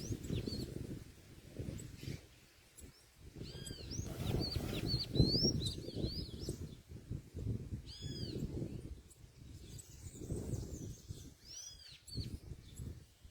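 Small birds calling with short, high, arched chirps that come in clusters every few seconds, over an irregular low rumbling noise.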